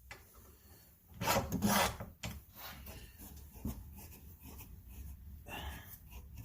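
Homemade clamp's steel rod scraping and rubbing in a hole of the aluminum fixture table as the clamp is fitted and pushed down. A louder scrape lasts under a second about a second in, followed by lighter clicks and rubbing.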